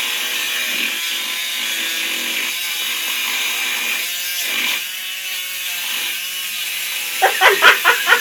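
A saw cutting steadily through the steel of a locked handcuff, giving a continuous high grinding rasp. Near the end, a quick run of loud pulses, about seven a second, fading off.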